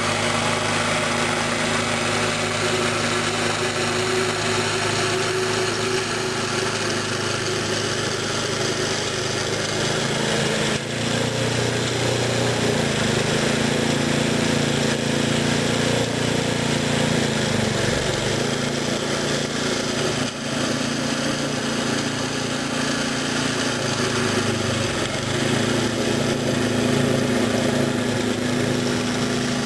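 Gas-engine walk-behind snowblower running steadily while clearing snow, its engine note shifting a few times midway.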